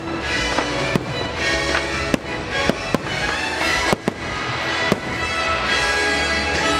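Fireworks going off in a string of sharp bangs, about one a second, over loud show music.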